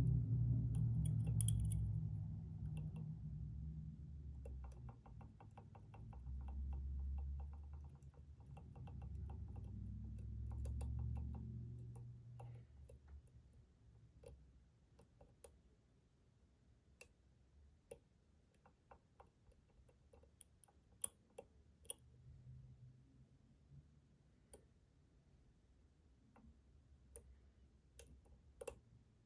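Lock pick and tension tool working the pins of a Schlage Primus Everest lock cylinder. For about the first twelve seconds there are rapid runs of fine clicking over a low rumble. After that come scattered sharp single clicks.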